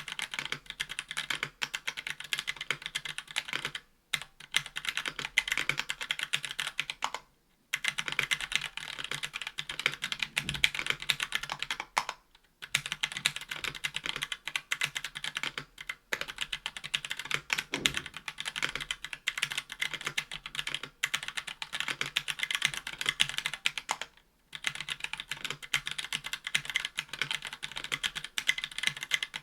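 Fast continuous typing on a 60% mechanical keyboard with Hako Royal Clear tactile switches in an aluminium case and plate, under GMK keycaps, with a few brief pauses between bursts.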